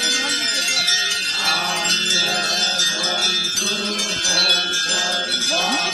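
Many small metal bells ringing and jingling together without a break, over a group of men's voices chanting in the dance.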